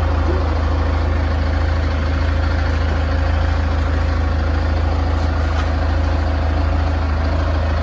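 An engine running steadily at idle, a loud, even low hum that does not change.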